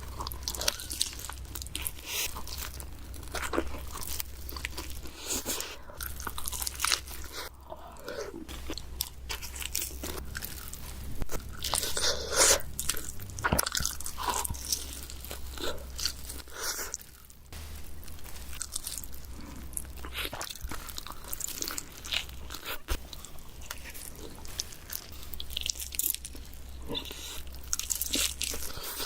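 Close-miked mukbang eating: bites into pizza and chewing, one after another in quick succession, with crust crackling.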